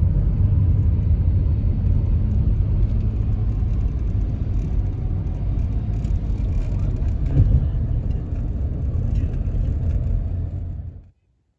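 Steady low road rumble of a car driving, heard from inside the cabin, cutting off abruptly near the end.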